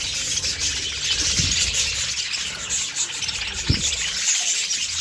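A flock of budgerigars chattering and squawking together in a dense, continuous din of short high calls. A single low thump comes about three-quarters of the way through.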